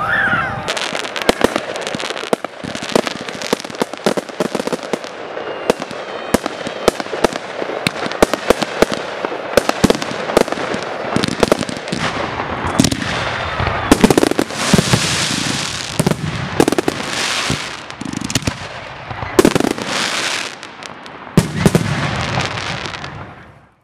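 Fireworks display: a dense run of rapid bangs from bursting shells, with long stretches of hissing, crackling glitter effects, fading out near the end.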